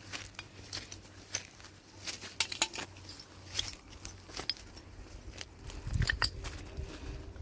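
Dry twigs and brushwood cracking and snapping, a few irregular sharp cracks every second.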